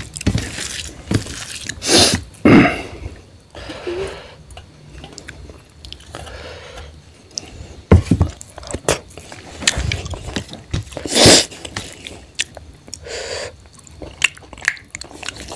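Chewing and mouth noises of a person eating rice and curry with his fingers: irregular wet clicks, with a few louder moments.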